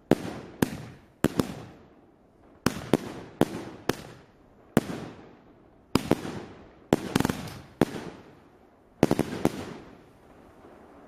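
A 2-inch, 49-shot firework cake (Royal Fireworks "Atlas") firing shot after shot. Sharp bangs come about every half second in uneven clusters, some in quick pairs, each dying away in a rumbling tail. The bangs stop about nine and a half seconds in.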